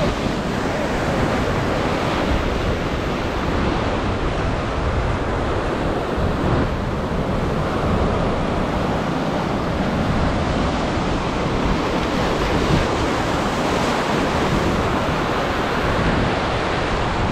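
Ocean surf breaking and washing over a rock ledge at the water's edge: a steady rush of white water and foam.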